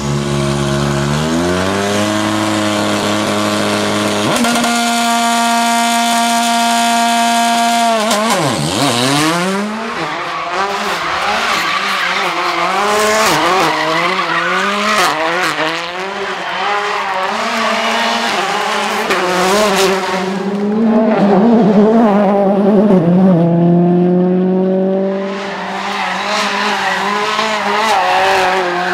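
A World Rally Car's 1.6-litre turbocharged four-cylinder engine being revved hard while spinning donuts, with tyres squealing. The revs climb, hold at one high pitch for a few seconds, drop sharply and pick up again, then rise and fall continuously as the car spins.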